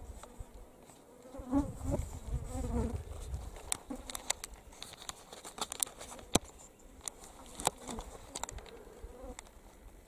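Flies buzzing close around the microphone, the buzz wavering in pitch as they move. A low rumble in the first few seconds, then a run of sharp clicks through the middle.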